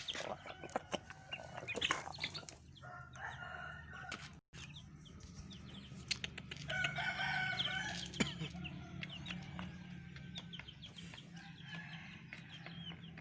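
Roosters crowing twice, about three seconds in and again about seven seconds in, with clucking and small birds chirping between the crows.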